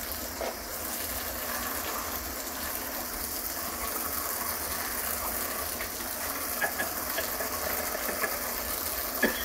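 Steady hiss of a garden hose spraying water against a wooden fence, with a few short knocks in the second half and a sharper one near the end.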